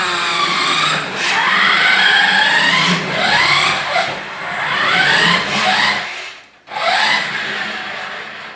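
Electric drive motor of a remote-control toy car whining, rising in pitch each time it is throttled up, several times over. The whine cuts out briefly about six and a half seconds in, then picks up again.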